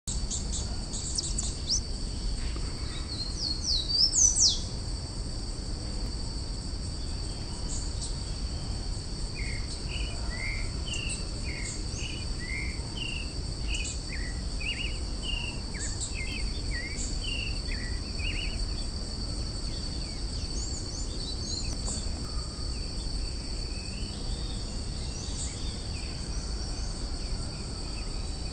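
Creamy-bellied thrush (sabiá-poca, Turdus amaurochalinus) singing a run of short, separate warbled notes, over a steady high trill of crickets and other insects. A few loud, high, sliding calls stand out about three to four seconds in.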